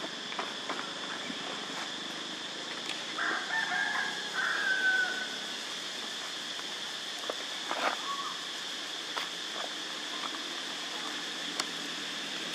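A rooster crowing once, a call of about two seconds starting just over three seconds in, over a steady high hiss.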